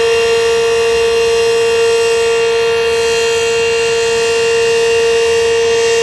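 Outdoor warning siren, taken for a Federal Signal Model 5, sounding one loud steady tone at full pitch during its daily noon test.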